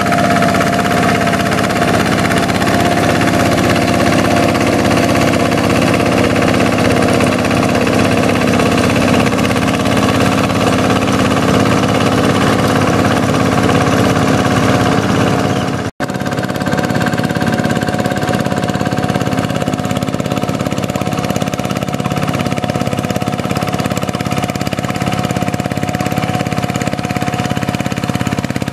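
Single-cylinder diesel engine of a two-wheel hand tractor running steadily under load as it drags a mud-levelling sled through a flooded rice paddy on iron cage wheels. The sound breaks off for an instant about halfway through, then carries on.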